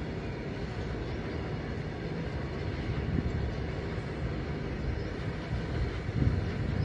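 Freight train of open-top wagons rolling past, a steady low rumble of wheels on rail, briefly louder about three seconds in and again near the end.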